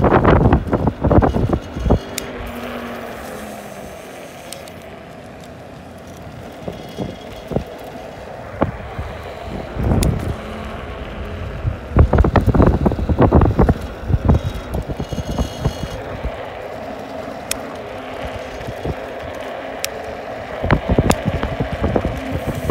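Wind buffeting the microphone on a moving 2500-watt electric scooter, in loud gusts near the start, around the middle and near the end, over a steady hum from the ride.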